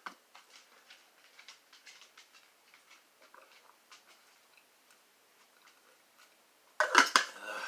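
Faint, scattered light clicks and ticks of hard objects being handled, then a short burst of loud sharp clicks and knocks about seven seconds in.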